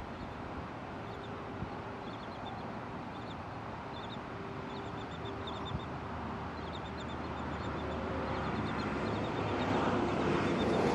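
An engine drone with a steady low hum over a rushing background, growing louder over the last few seconds. Short, faint, high bird calls from a resting flock of terns, gulls and skimmers come through in small clusters before it swells.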